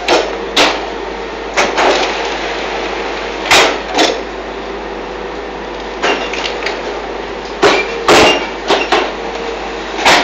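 Fly ash concrete brick making machine running: a steady machine hum broken by about a dozen loud metal clanks and bangs at uneven intervals as the press and mould cycle.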